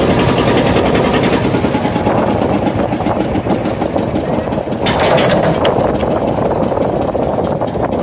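Boat motor running steadily at low speed, a continuous pulsing engine sound, as the boat nears the riverbank.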